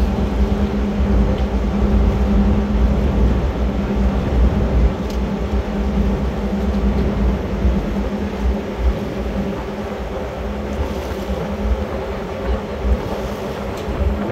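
Tugboat's diesel engine running steadily under way: a continuous low rumble with a steady hum, easing slightly in the second half.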